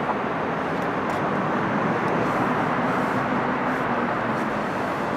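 Steady road traffic noise from the surrounding city streets, an even rumble and hiss with no single engine standing out.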